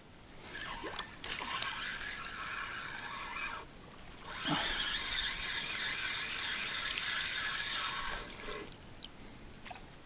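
Water splashing and trickling in two stretches of a few seconds each, with a short pause between them.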